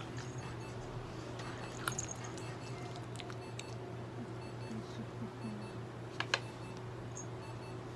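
Steady electrical hum with faint, evenly repeating ticks, broken by a few sharp clicks about two seconds in and a louder pair of clicks about six seconds in.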